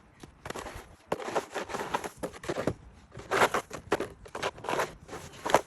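Snow being shovelled: a run of short crunching, scraping strokes, several a few seconds apart, with sharp clicks between them.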